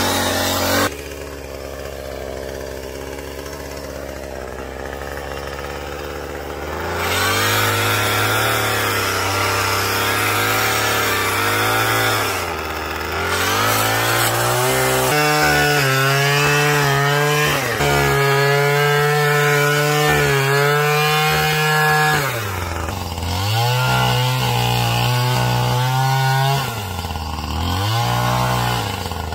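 Power string trimmer running and cutting through thick pond-edge weeds. Its motor whine runs steadily and quieter at first, jumps louder and higher about seven seconds in, then drops in pitch and picks back up three times near the end as the throttle is eased and reapplied.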